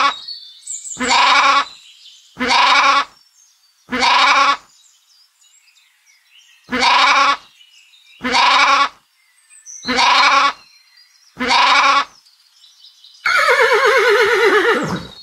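Sheep bleating: seven short, quavering baa calls about a second and a half apart, with one longer pause midway. Near the end a horse whinnies once, a long call that falls in pitch.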